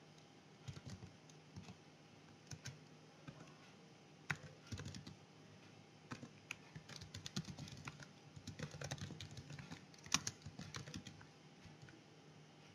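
Faint typing on a computer keyboard: scattered keystrokes at first, then quicker runs of keys over several seconds, over a faint steady low hum.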